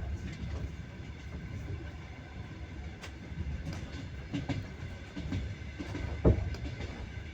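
Train wheels running on the rails with a steady low rumble and the clack of wheels over rail joints, one clack much louder about six seconds in.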